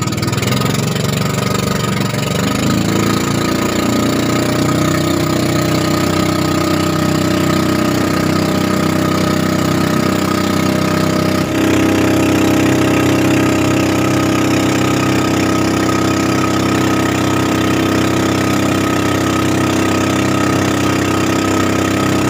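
A small boat's motor running steadily under way, with a hiss of wind and water over it. The engine note rises a little a few seconds in and changes abruptly about halfway through.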